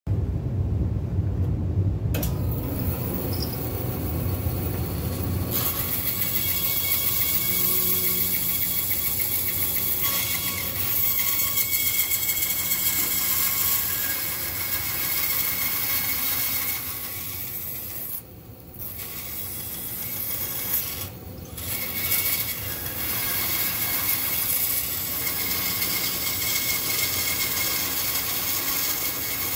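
Bandsaw running and cutting through a maple neck blank, a steady noisy saw sound that eases off briefly twice about two-thirds of the way through.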